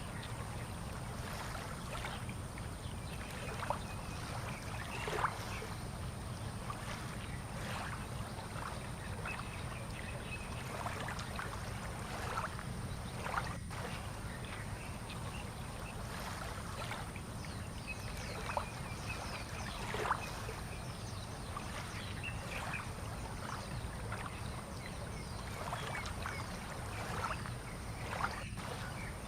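Harbour water lapping and slapping in small, irregular splashes over a steady low rumble, with a few faint bird chirps.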